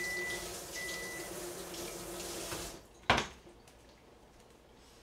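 Microwave oven beeping to signal that the heating time is up, over tap water running for about two and a half seconds; a single sharp click follows about three seconds in.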